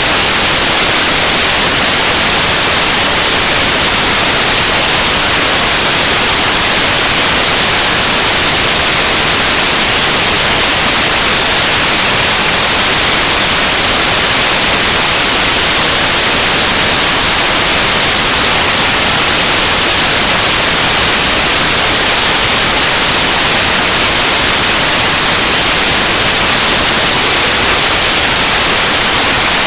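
Loud, steady static hiss that fills the recording, even and unchanging throughout, with no singing or voice to be heard.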